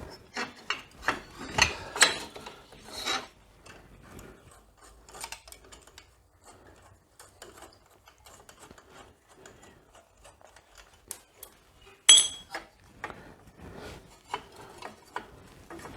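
Hand tools working metal fasteners on a motorcycle: irregular scraping, rubbing and clicking, busiest in the first few seconds. About twelve seconds in there is one loud metallic clank that rings briefly.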